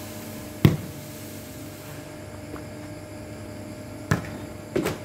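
Sharp knocks of a ball being struck in play over a net: one loud hit about a second in, then two more close together near the end.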